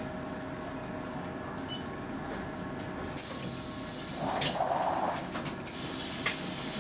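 Interior of a Göteborg M31 tram: steady hum of the car's equipment with a faint steady tone. A few sharp clicks and, about four seconds in, a noisy rush lasting about a second.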